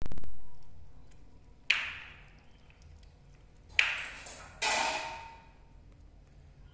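Metal cooking pot of water knocked and ringing as kittens lean on its rim: a loud knock at the very start, sharp taps about 2 and 4 seconds in, and a clank with a longer ring about four and a half seconds in.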